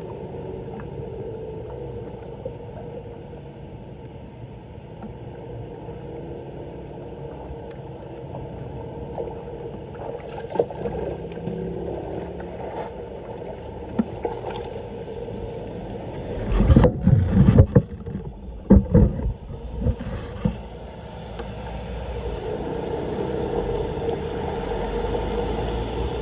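Floodwater rushing into a street drain, a steady low rush. About two-thirds of the way through come a few seconds of loud knocks and rustling.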